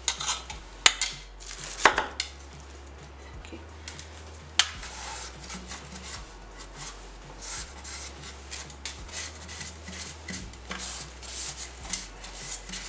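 A hand tool clicking and scraping against the metal oil pan of an industrial sewing machine as lint, thread scraps and needle bits are picked out of its corners. There are a few sharp clicks in the first five seconds, then steady scratchy rubbing as the pan is scraped and wiped.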